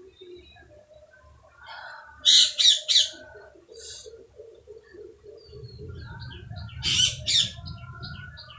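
Birds calling: three loud, sharp squawks in quick succession a couple of seconds in, then two more near the end over a quick run of short high chirps.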